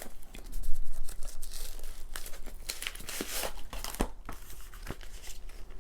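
An album's wrapping and card packaging crinkling and tearing as it is opened by hand, with many small crackles and handling clicks. The loudest is about a second in.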